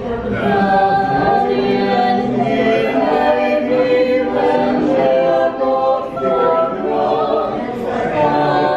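A mixed-voice SATB quartet, two women and two men, singing a Christmas carol a cappella in four-part harmony, with long held notes.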